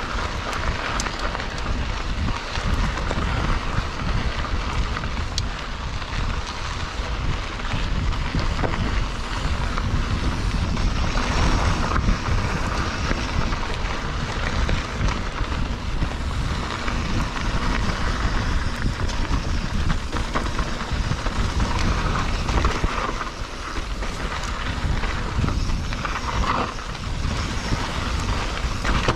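Wind noise on a handlebar-mounted microphone over the steady rumble of mountain-bike tyres rolling on a dirt trail, with a few small knocks from the bike over bumps.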